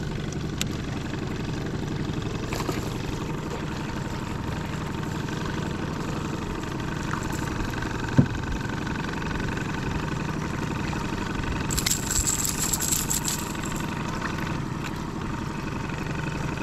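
Boat's outboard motor idling steadily, with a single sharp knock about eight seconds in and a brief high rattling hiss about twelve seconds in.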